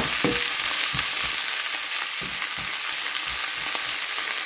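Sliced onions, green chillies and curry leaves sizzling in oil in a nonstick pan while a wooden spatula stirs them, with irregular light knocks and scrapes of the spatula against the pan.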